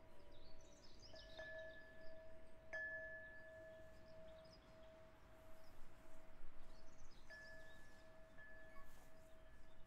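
Soft chime music: one steady ringing tone is held throughout, and a few higher struck chime notes ring out over it and fade. The clearest comes about three seconds in, with two more near the end.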